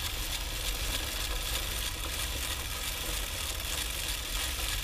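Stiff-bristled chain brush scrubbing a solvent-wet motorcycle drive chain at the rear sprocket: a steady scratchy hiss, with a low rumble underneath.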